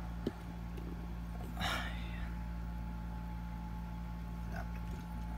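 Steady low electrical hum with a faint steady whine above it, with a small click just after the start and a brief swish about a second and a half in.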